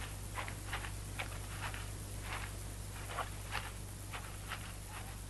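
Footsteps on leaf litter, about two steps a second, over a steady low hum.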